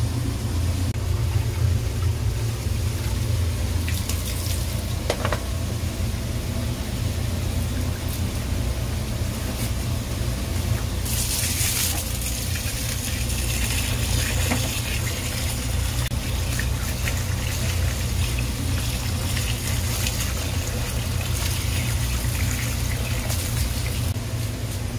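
Water from a hose pouring and splashing onto raw rice in a plastic basin, over a steady low hum of machinery.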